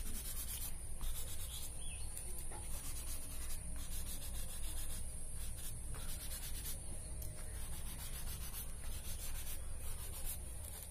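Crumpled tissue paper rubbed back and forth over a graphite pencil drawing on paper, blending and smoothing the shading: a steady, continuous rubbing of tissue against paper.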